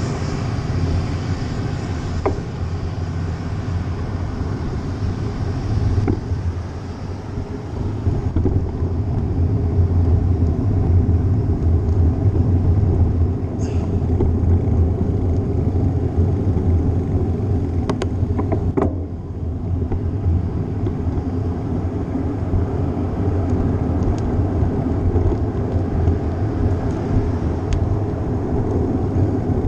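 Wind and road noise on a bicycle-mounted GoPro while riding: a steady low rumble, with a few sharp clicks about 14 and 18 to 19 seconds in.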